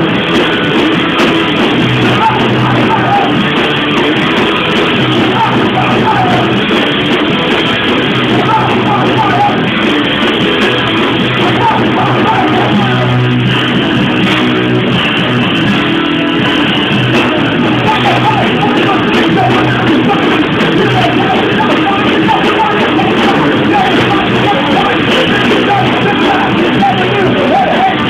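Live rock band playing loud, with electric guitar and singing.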